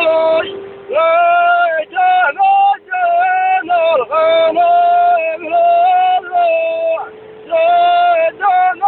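A song with a singing voice: a run of long held notes with short breaks between them, over a steady low drone.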